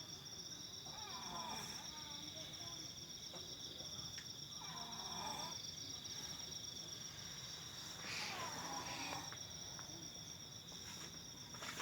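A sleeping person snoring, three breaths about three to four seconds apart, over a steady high trill of insects.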